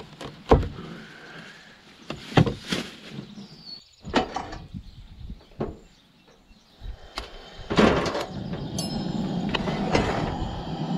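A knife cutting asparagus spears on a plastic cutting board, a few sharp separate knocks. Then, from about eight seconds in, a steady rushing hiss from a cast iron skillet heating on a camp stove.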